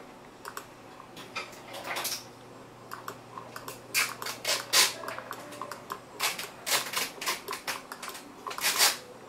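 Irregular clicks and short rustling scrapes, in uneven clusters, over a faint steady low hum.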